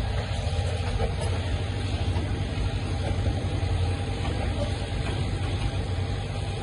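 Steady low drone of a diesel locomotive engine under power as open freight wagons of a coal train roll slowly past. The engine heard is the banker locomotive pushing from the rear, since the lead locomotive has failed and is shut down.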